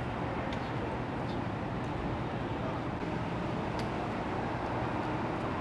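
Steady low rumble of outdoor street noise, with a few faint clicks.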